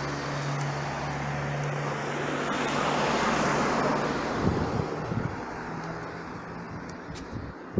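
A car driving past on the street: a steady engine hum, then tyre and road noise that swells about three seconds in and fades away. Irregular low thumps follow near the end.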